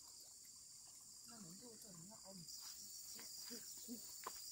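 Faint, steady high-pitched chirring of insects, joined about halfway through by a fast pulsing chirp.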